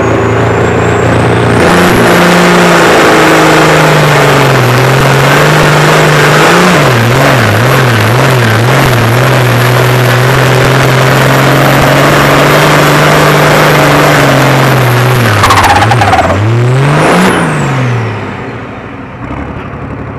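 Ford farm tractor's diesel engine running flat out under load through a tractor-pull run. Its revs bounce up and down several times early in the pull, then hold steady. Near the end the throttle comes off, the engine blips once more and drops back to a much quieter run.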